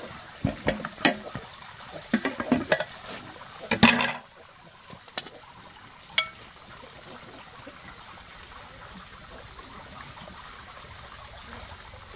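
A blackened metal cooking pot clanks and knocks as it is lifted off the fire grate and set down, with several sharp strikes in the first four seconds. Then come two single clinks of a ladle and bowl over a steady faint hiss.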